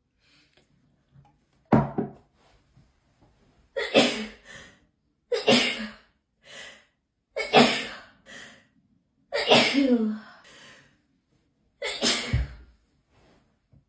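A person sneezing over and over in a hay fever sneezing fit: six sharp sneezes about two seconds apart, each trailed by a shorter, quieter sound.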